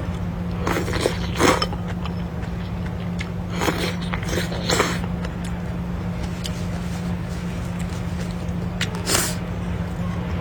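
A person eating noodles: several short slurps, a cluster near the start, another a little before the middle and one near the end, over a steady low hum.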